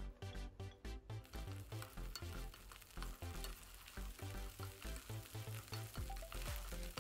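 Garlic cloves sizzling in hot oil in a frying pan, stirred and pushed around with a spatula. The sizzle thickens about a second in, once the last cloves are tipped in. Background music with a steady beat plays throughout.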